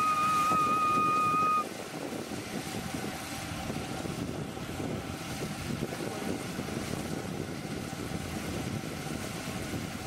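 A held whistle-like musical note stops about two seconds in. After that comes the steady running of a Kubota combine harvester as it cuts rice, with wind on the microphone.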